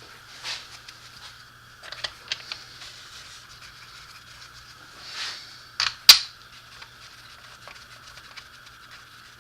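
Bolts and hand tools handled on the NP247 transfer case housing as its bolts are set in: scattered light clinks and knocks, with two sharp clicks about six seconds in as the loudest, over a steady background hum.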